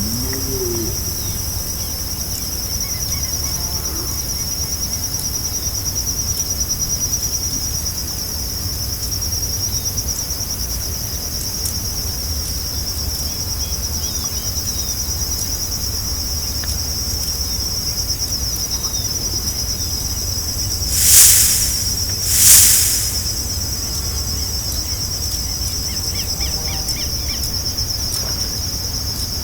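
Steady, high-pitched trilling chorus of crickets or similar insects in tropical forest. Two short, louder rushing swells come about a second and a half apart near the end.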